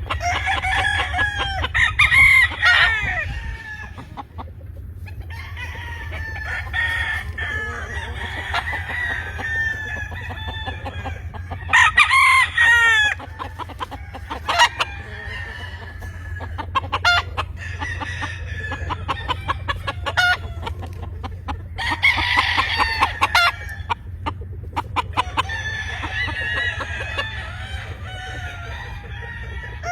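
Roosters crowing in turn, the loudest crows about two seconds in, around twelve seconds and around twenty-two seconds, over continuous clucking from many chickens. A steady low hum runs underneath.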